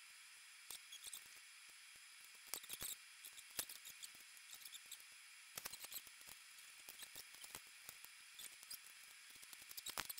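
Faint, irregular clicks, taps and light scrapes of vinyl and PVC pipe pieces being handled and fitted together into a hoop frame, some coming in quick little clusters.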